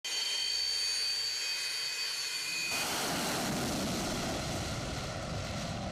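Military jet engines: a steady high whine, then the full rush of jet noise comes in abruptly about three seconds in, as the fighter takes off.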